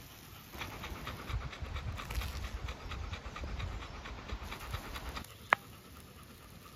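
A Labrador dog panting rapidly in a steady rhythm, going quieter after about five seconds. Just after that comes a single sharp click, the loudest sound.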